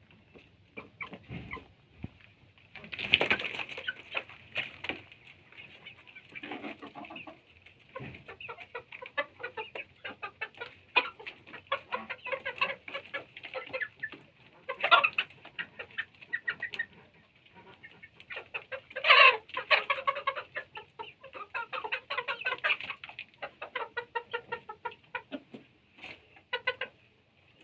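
Domestic chickens clucking in a flock: many short, repeated calls overlapping throughout, with louder squawks about three, fifteen and nineteen seconds in.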